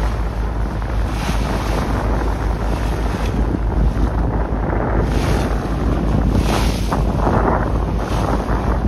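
Wind buffeting the microphone in gusts over the wash of waves, recorded from a small boat moving through choppy sea.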